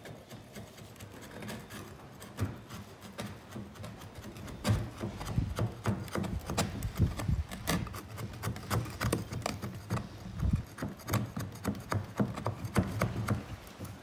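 Metal scraper scraping and knocking along the top edge of a wooden stingless bee hive box, cleaning it up so the next box fits on. Irregular scrapes and taps that grow louder and busier from about four and a half seconds in.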